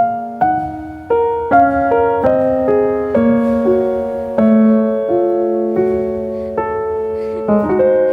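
Background music: gentle piano playing slow chords and a melody, each note struck and left to ring.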